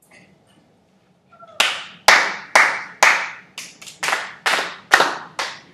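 Hands clapping a short rhythm: about ten sharp claps beginning about a second and a half in, mostly evenly spaced, with a quick pair in the middle.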